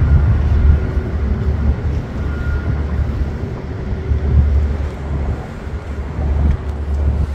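Outdoor harbour ambience dominated by an uneven low rumble, with a light hiss over it.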